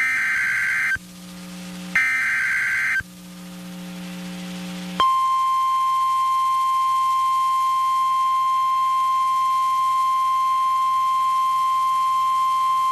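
NOAA Weather Radio emergency alert: the last two of the three SAME digital header bursts, each a harsh, high-pitched, one-second data screech, then about five seconds in the steady 1050 Hz warning alarm tone starts and holds. The tone signals that a warning is about to be broadcast.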